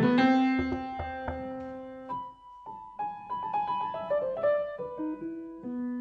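Solo piano: a full chord rings and dies away over the first couple of seconds, then quieter single notes and small chords follow, with short pauses between them.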